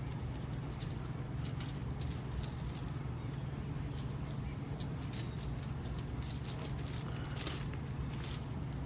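Steady high-pitched chorus of insects such as crickets, with a low steady hum underneath and a few faint scattered clicks.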